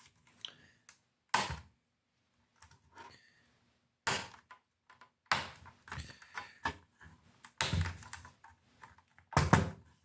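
Irregular clicks and knocks of hands handling a cassette multitrack's plastic casing and parts while taking it apart. The loudest come about four seconds in and near the end.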